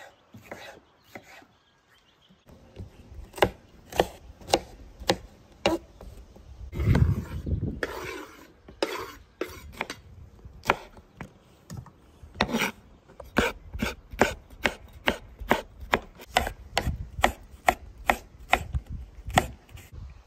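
Repeated sharp knocks, two or three a second at an uneven pace, on something hard, with a longer scraping sound about seven seconds in and again about twelve and a half seconds in.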